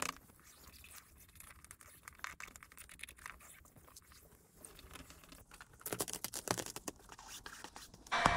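Faint scraping and rubbing of a plastic squeegee and fingertips working vinyl wrap film onto a car's rear bumper, a string of small scratchy strokes with louder rubs about six seconds in. Just before the end a loud, steady whirring noise starts up.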